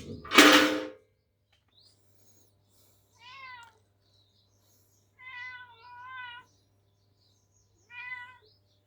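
Cat meowing three times, the middle call longer and wavering, after a loud, brief knock or clatter in the first second.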